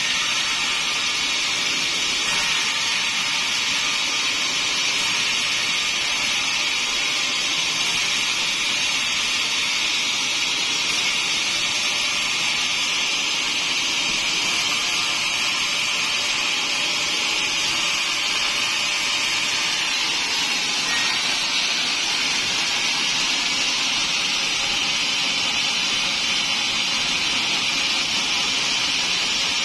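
Large band sawmill cutting through a teak block: a steady high-pitched hiss of the blade in the wood.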